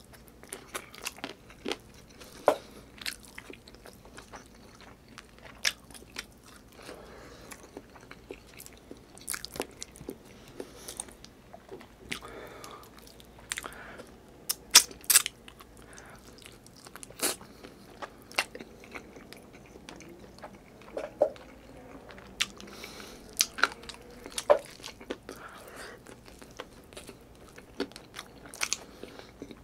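Close-miked chewing and lip-smacking of a person eating braised chicken adobo and rice by hand, with sharp mouth clicks and smacks at irregular intervals, a loud pair about halfway through.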